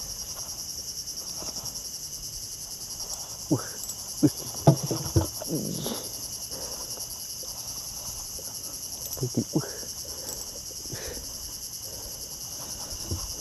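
Steady, finely pulsing chorus of insects in the mangroves, high-pitched. A few short sharp knocks cut in around three and a half to five seconds in and again around nine seconds in.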